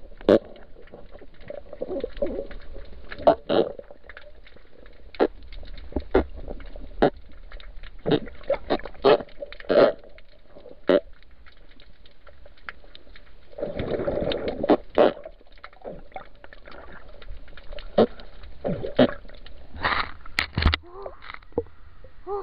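Muffled underwater knocks and clicks, irregular and scattered, as a diver handles a spiny lobster in front of the camera, with a longer rush of water noise about 14 seconds in.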